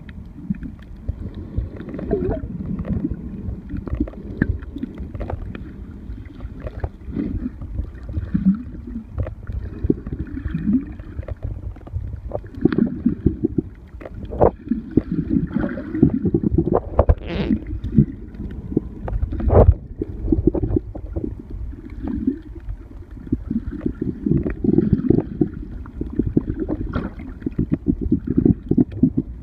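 Muffled rumbling water with gurgling and scattered knocks and clicks.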